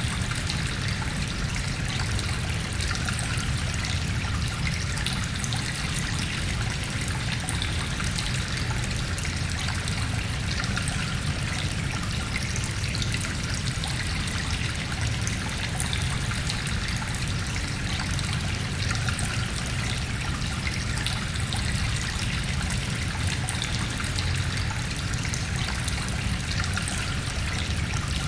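A stream trickling and flowing inside a cave, the water echoing, over a steady low rumble.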